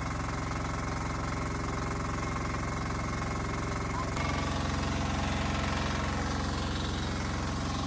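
Engine idling steadily; about four seconds in its note drops and gets slightly louder.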